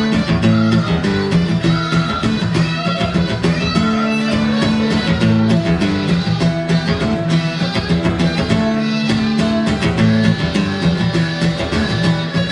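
Two guitars playing a song live, with chords and held notes moving through changes.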